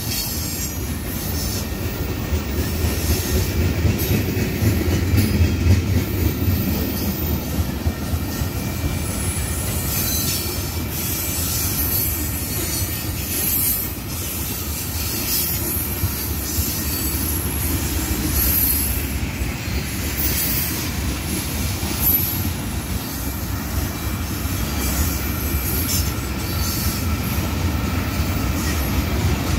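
Freight tank cars of an ethanol unit train rolling past: a steady low rumble of steel wheels on rail, broken by repeated high-pitched wheel squeal.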